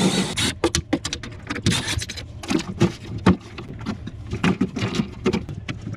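Irregular clattering: sharp knocks, clicks and rattles of stainless sheet-metal panels and parts being handled inside a refrigerated prep table's evaporator compartment.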